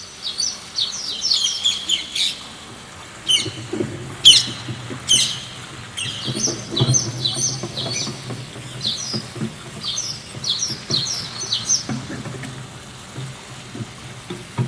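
Small birds chirping and twittering in quick repeated phrases, with a few sharper, louder calls about four to five seconds in, over a faint low rumble.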